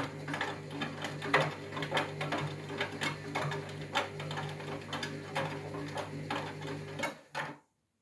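Front-loading washing machine on its main wash: the drum turns with a steady motor hum and water sloshing, while the backpacks in the load give irregular clicks and knocks against the drum. The sound cuts off suddenly near the end.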